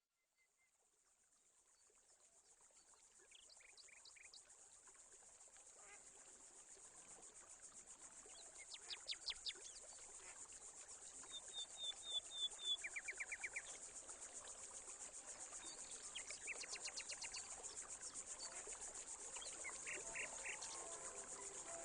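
Insects trilling in a steady high buzz, with scattered bird chirps and short trills, fading in from silence and growing slowly louder.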